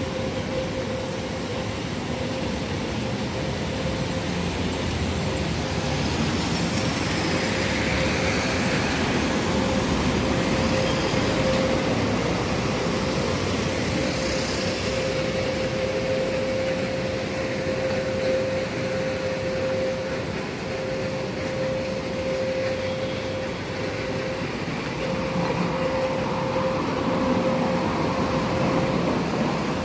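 City street traffic: a steady wash of truck and vehicle engine noise, with a constant hum held almost throughout and a few gentle swells as vehicles pass.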